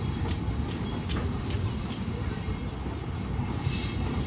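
Humsafar Express passenger coaches rolling slowly past: a steady low rumble with a regular clicking of wheels over rail joints.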